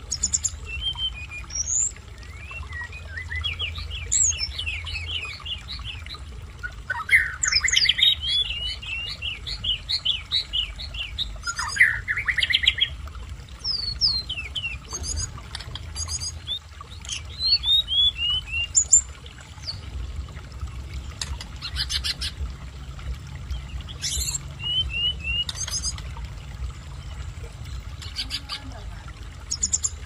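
A caged tledekan gunung (hill blue flycatcher) singing: varied phrases of quick, high chirps and sliding notes in bursts, with the loudest runs about a quarter, two fifths and three fifths of the way through.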